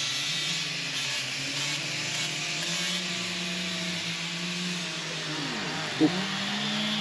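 Small two-stroke chainsaw engine running at high revs with a steady buzz, easing off briefly about halfway through and then picking up again.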